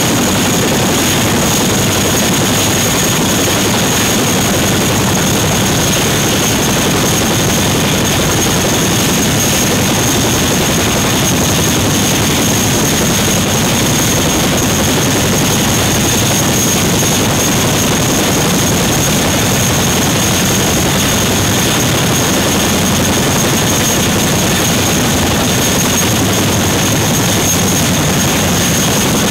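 RAF Boeing CH-47 Chinook running on the ground, its twin turboshaft engines and tandem rotors turning at a steady pace: a constant high turbine whine over a loud, unbroken rush of rotor noise.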